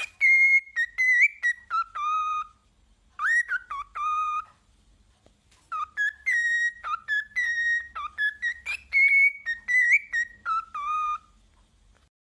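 A parrot whistling a tune in three phrases of clear, gliding notes, with short pauses between the phrases.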